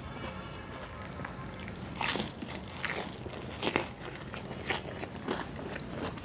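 Close-up chewing and crunching of fried chilli fritters (mirchi pakoda). Several sharp, loud crunchy bites come from about two seconds in.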